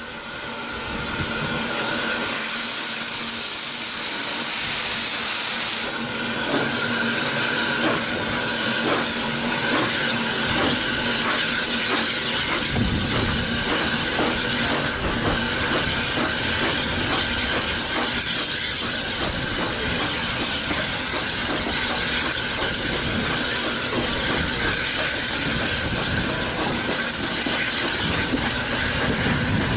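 Austerity 0-6-0 saddle tank steam locomotive getting a train under way, heard from the carriage behind it: a steady hiss of steam, with exhaust beats coming in about six seconds in. A heavier rumble of wheels on the rails builds from about a third of the way through as the train gathers speed.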